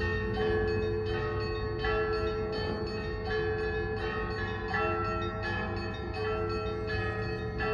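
Orthodox church bells ringing a festive peal: several smaller bells struck in quick succession, a few strikes a second, over the long steady hum of a larger bell.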